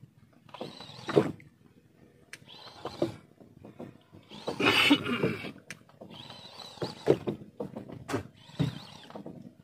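A man's repeated effortful breaths and grunts, a short burst about every one to two seconds, in time with his jerks of a heavy jigging rod, with a few faint clicks between them; the loudest, longer grunt comes about five seconds in.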